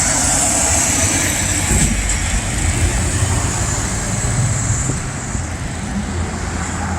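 A heavy truck going by at a busy intersection, its engine rumble and tyre noise loud and steady, then slowly fading over the last few seconds.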